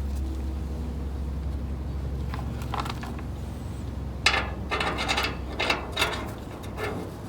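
Ratchet wrench clicking in short bursts while working bolts on the car's front suspension, starting a little over halfway in, over a steady low hum.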